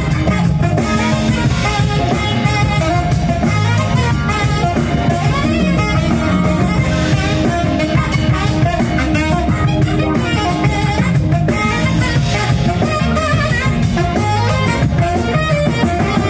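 Live band playing: saxophone leading over electric guitar, bass guitar and drums.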